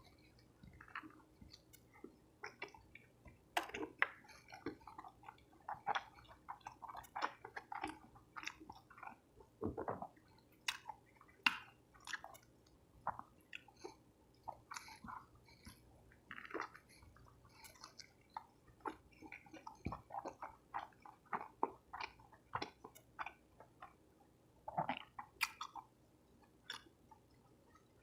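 Close-miked chewing of soft tacos: an irregular run of wet smacks, squishes and crunchy clicks from the mouth, a few of them louder, with no talking.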